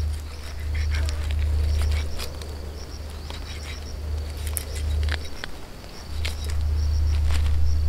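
Eating grilled chicken with the hands: scattered crackles and clicks of tearing and chewing, over a low rumble that swells and fades. An insect chirps in short, evenly repeated bursts.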